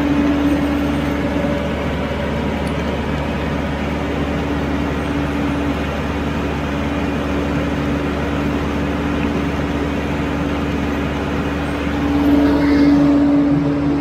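Engines of a trailer-mounted concrete pump and a concrete mixer truck running steadily, a constant drone with a steady hum; it grows louder for a moment near the end.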